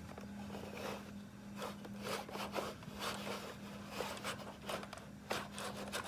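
Toy cable car being moved by hand along its cable: irregular soft rubbing and scraping with small clicks, over a steady low hum.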